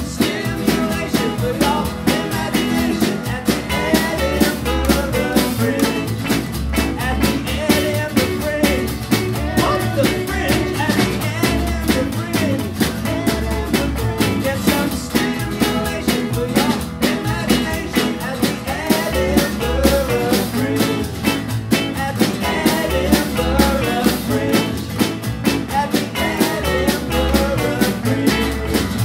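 Live rockabilly band playing: slapped-style upright double bass, acoustic and electric guitars and a small drum kit with snare and cymbal, with a man singing over a steady beat.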